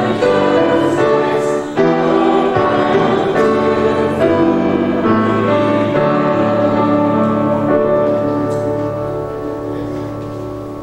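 Congregation singing a hymn with piano accompaniment, closing on a long held final chord that slowly fades over the last few seconds.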